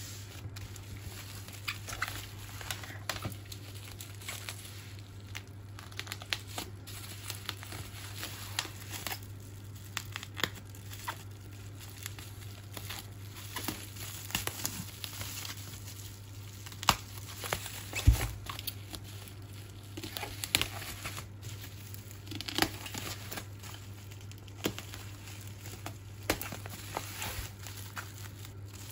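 Plastic bubble wrap crinkling and crackling in irregular bursts as a wrapped box is handled, with one dull thump a little past the middle, over a steady low hum.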